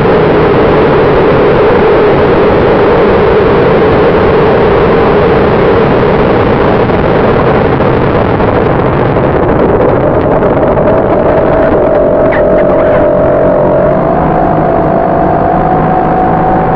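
Onboard audio of a Binary 1200 FPV model airplane in flight: a steady rush of wind over the airframe with the hum of its propulsion motor. The motor tone steps up in pitch about ten seconds in and twice more near the end as the throttle is raised.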